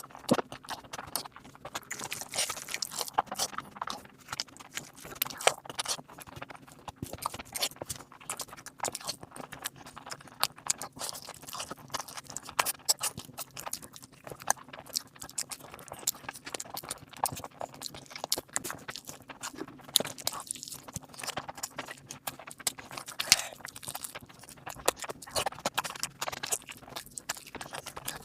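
Close-up eating of biryani: wet chewing and lip smacking with irregular clicks and soft crunches throughout.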